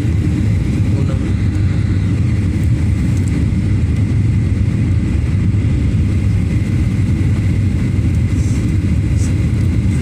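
Steady low roar inside a Boeing 737's passenger cabin in flight: jet engine and airflow noise, with a faint steady whine above it.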